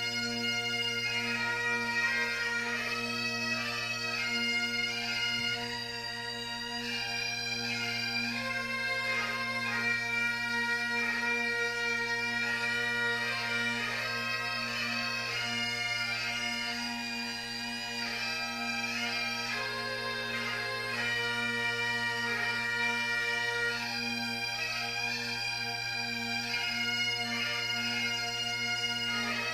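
Bagpipe music: a steady low drone sounding under a chanter melody that moves from note to note.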